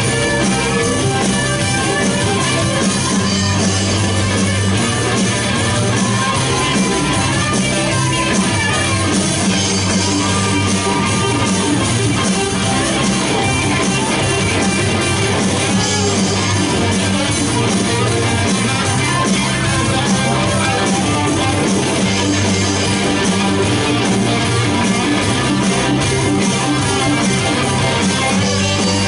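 Live rock band playing at a steady loud level, electric guitar to the fore over bass and drums.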